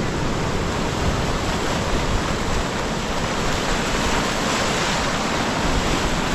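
Sea surf rushing steadily on the shore, with wind rumbling on the microphone.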